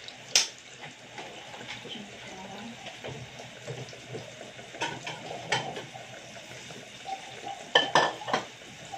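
Kitchen clatter of dishes and metal utensils: scattered sharp clinks and knocks, one about half a second in, a couple around five seconds, and a quick cluster of several near the end.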